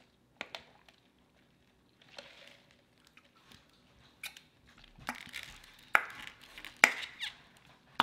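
Close-miked mouth sounds from sipping a fountain drink through a straw. There are a few soft clicks and a brief slurp early on, then several sharp lip smacks and mouth clicks in the second half.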